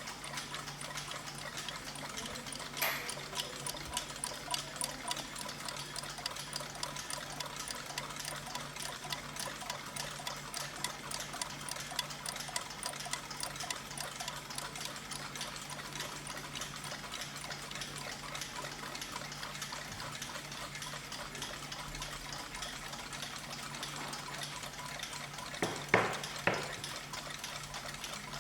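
Several clocks ticking together, their ticks overlapping into a fast, uneven clatter over a steady low hum. There is a louder click about three seconds in and two sharp knocks close together near the end.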